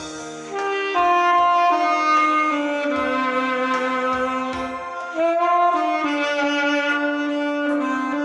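Saxophone playing a slow melody of long held notes over instrumental accompaniment, with a new, louder phrase starting about five seconds in.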